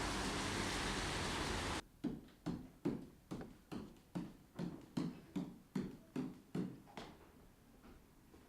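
A steady hiss that cuts off abruptly about two seconds in, followed by a run of about a dozen evenly spaced short thuds, a little over two a second, that stop about seven seconds in.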